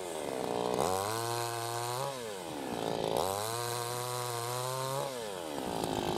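Two-stroke petrol chainsaw cutting firewood: the engine revs up, holds steady through a cut and drops back, then does the same for a second cut before settling back toward idle.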